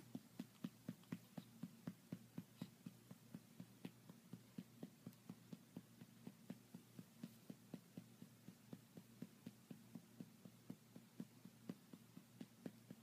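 Rhythmic soft pats on a baby's back, about three to four a second, to bring up a burp.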